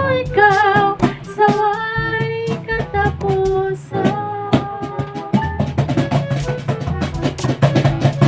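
A worship song with a sung melody, accompanied by hand strikes on a beatbox box drum. The strikes grow busier and denser in the second half. It is a child's first, still-unsteady try at playing the drum.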